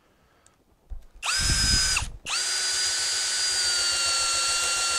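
DCK cordless drill driving a 3/8-inch by 3-inch lag bolt into a doubled-up 2x4. A short run starts about a second in, stops briefly, then the motor runs with a steady whine for about three seconds and slows slightly near the end.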